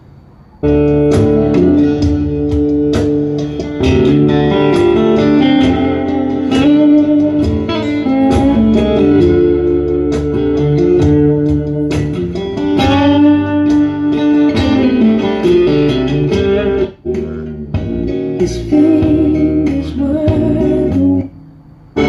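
Recorded music, with guitar prominent, played back loud through an Electro-Voice 30-inch woofer paired with a horn through a two-way crossover. It starts about half a second in, drops out briefly about three-quarters of the way through, and stops just before the end.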